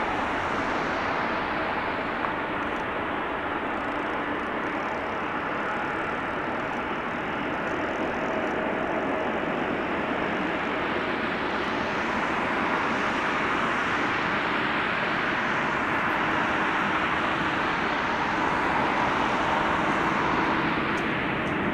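Jet airliner's engines at takeoff power during the takeoff roll and climb-out: a steady rushing jet noise with faint whining tones in it, growing a little louder over the second half.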